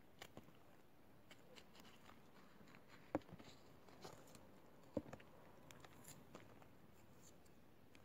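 Kitchen knife cutting through fresh green bean pods held in the hand: faint, scattered clicks and snaps, with two sharper snaps about three and five seconds in.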